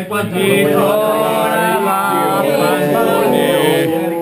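A group of men singing a song together unaccompanied, in sustained, continuous notes.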